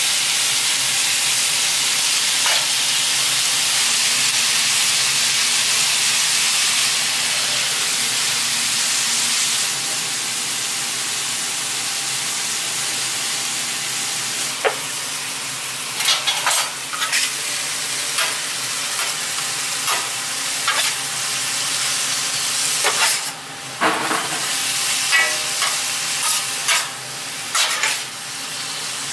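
Beef strips, onions and green peppers sizzling on a hot flat-top griddle, a steady hiss that is loudest over the first ten seconds or so. From about halfway on, a metal spatula scrapes and clicks against the griddle as the meat and vegetables are turned and chopped.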